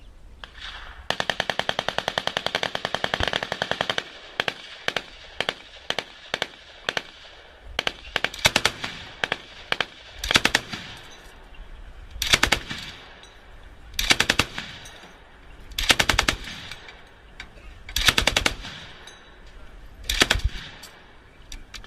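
Tripod-mounted spade-grip heavy machine gun firing. About a second in comes one long burst of about three seconds, then scattered single shots, then short bursts of several rounds roughly every two seconds.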